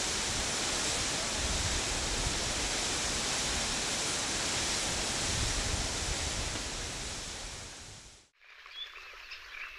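Rushing stream water, a steady full-band rush that fades and stops about eight seconds in. A few faint chirps follow near the end.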